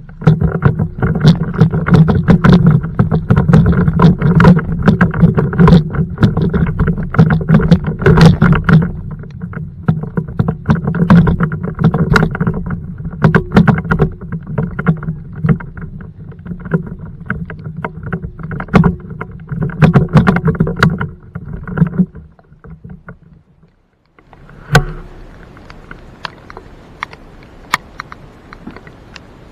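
A kayak trailer is towed behind a pickup over a wet road, rumbling and rattling with a steady drone. It stops about 22 seconds in. A single knock follows, then a faint steady hiss of rain.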